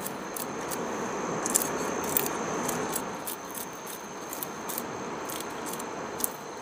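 Steady rush of flowing river water under a continuous high insect drone, with scattered sharp scratchy clicks of a knife scraping scales off fish.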